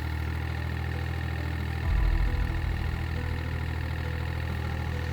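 Excavator engine running steadily with a deep, even note; about two seconds in it gets louder and heavier, and stays that way.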